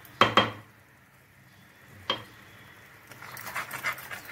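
A metal spoon clinking against the pan, with two quick taps, then one more about two seconds in, each with a short ring. From about three seconds in, the boiling sugar syrup bubbles and crackles quickly as it is stirred.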